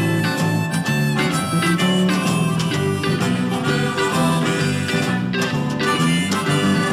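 Instrumental break of a slow gospel hymn: a clarinet plays the melody over strummed acoustic guitar and electric guitars keeping a steady beat.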